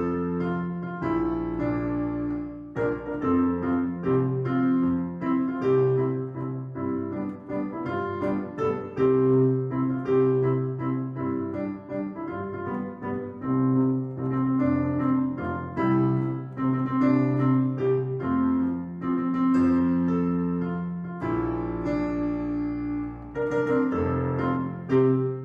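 Piano music: a continuous run of notes over held chords in the bass.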